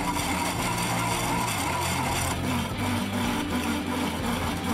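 Copper tube drill turning in wet abrasive grit on granite, a steady grinding rub, over background guitar music.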